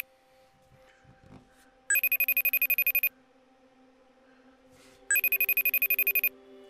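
FaceTime call ringing out on a Mac: a fast electronic trill of about a second, twice, about three seconds apart.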